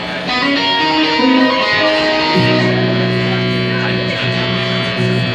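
Guitar music: a short run of single held notes, then a sustained low chord from about halfway through.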